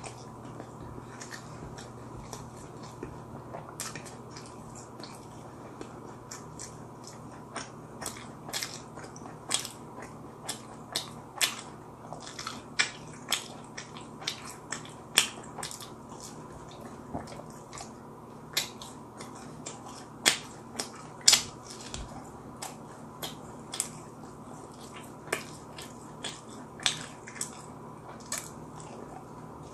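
A person chewing and biting into crispy fried chicken close to the microphone, with many short, irregular crunches and mouth clicks, growing more frequent after the first several seconds.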